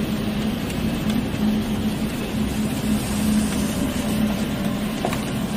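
Steady rushing noise of a heavy rainstorm over flooded streets, with a steady low hum beneath it.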